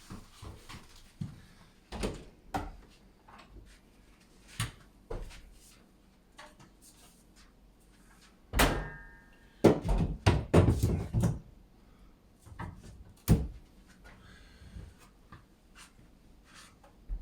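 Scattered knocks and thumps, with a brief squeak about eight and a half seconds in and a cluster of loud thuds about ten to eleven seconds in.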